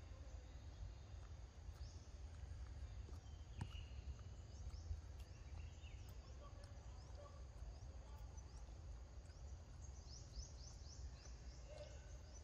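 Faint forest ambience: a low steady rumble with scattered high chirps, a couple of soft clicks about four and five seconds in, and a quick run of chirps near the end.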